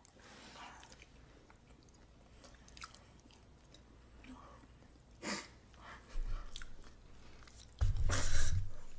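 A person chewing and biting into fried chicken, with a few short sharp bites scattered through, and a louder noisy burst with a low thump near the end.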